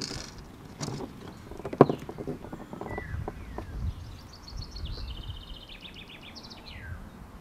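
Knocks and rattles of tackle being handled in a boat, the loudest a sharp knock a little under two seconds in. From about halfway, a songbird sings a fast series of high repeated notes that step down in pitch and end in a falling flourish.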